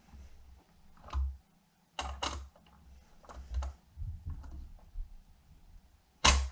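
Irregular clicks and knocks of hand tools and small metal hardware being handled while fitting a motorcycle saddlebag latch kit, with the sharpest knock near the end.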